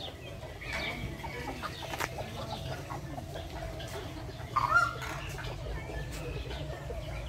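Chickens clucking, with one louder squawk a little before five seconds in.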